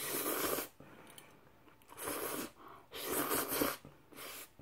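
Close-miked eating of pumpkin-sauce pasta: four short noisy bursts, one at the start and three more in the second half.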